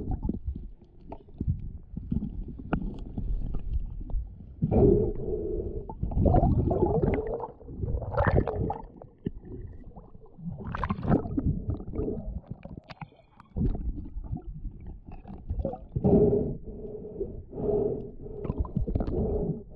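Muffled underwater sound picked up by a handheld action camera during a snorkel dive: water sloshing and gurgling in irregular surges, with splashing while the camera is at the surface with a speared sheepshead about halfway through.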